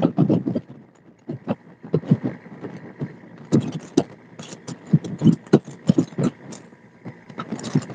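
Noise aboard a fishing boat under way at sea: irregular knocks and gusts, several a second, over a faint steady hum.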